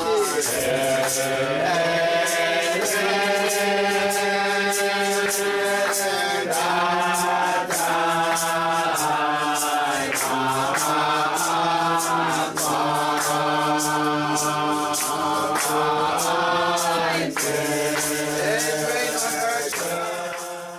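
Background music: a chanted song with sustained sung lines over a steady low drone and a regular beat of about two strokes a second, fading out near the end.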